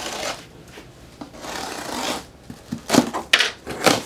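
A utility knife slicing through packing tape on a cardboard box, in long scraping strokes. Near the end, sharp rustles and knocks as the cardboard flaps are pulled open and the knife is set down on the wooden table.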